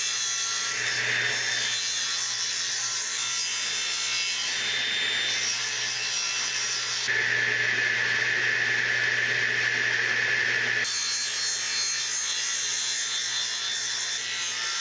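Table saw running, its spinning blade cutting a shallow channel into a scrap-wood board fed across it with a push block. About seven seconds in the sound grows louder and harsher for about four seconds as the blade cuts through the wood, then settles back to the saw running freely.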